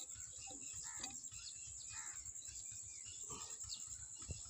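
Quiet outdoor ambience: a steady high-pitched insect drone with scattered bird chirps.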